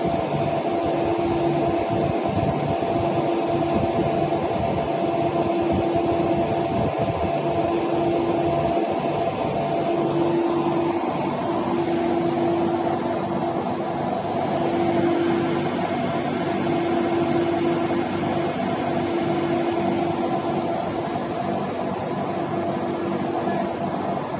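Steady drone of a fishing vessel's engines and deck machinery, with a hum that cuts in and out every second or two.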